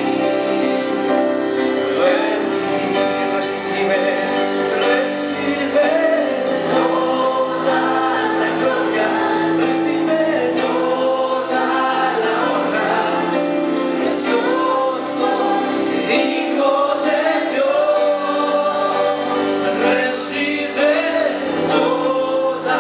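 Live worship music: singers at microphones sing a gospel-style song over steady held chords, with several voices singing together.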